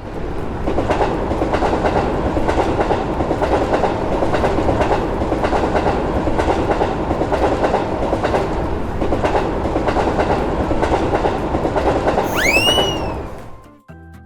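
Train passing at speed: a steady rumble with the clickety-clack of wheels over rail joints. Near the end a short tone rises and falls, and then the sound dies away.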